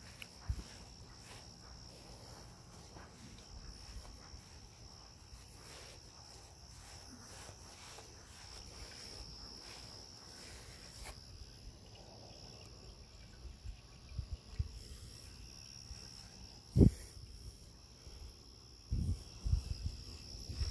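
Crickets calling in a steady high-pitched trill. A few low thumps come in the second half, one much louder about seventeen seconds in.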